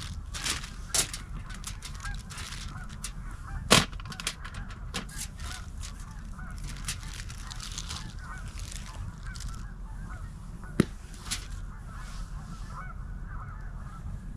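A flock of geese honking, many calls overlapping without a break. A few sharp clicks and knocks stand out, the loudest about four seconds in.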